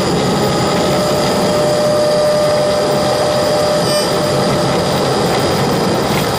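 AM radio static from electromagnetic interference: a loud, steady hiss and buzz. A thin whistling tone runs through it from about a second in until about four seconds in.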